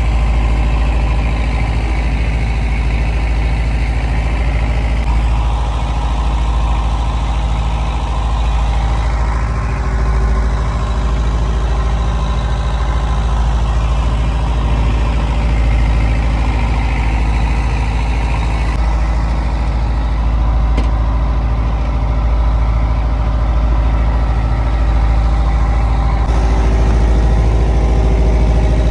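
Fishing boat's inboard engine running steadily, a loud low drone.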